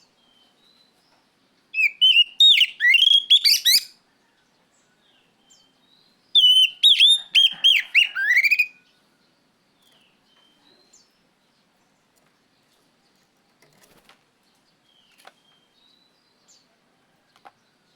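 Oriental magpie-robin singing: two loud phrases of quick, varied whistled notes, each about two seconds long, starting about two seconds and about six seconds in, with faint scattered chirps between and after.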